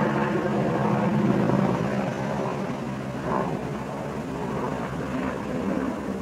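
A steady low engine drone, easing slightly over the first few seconds.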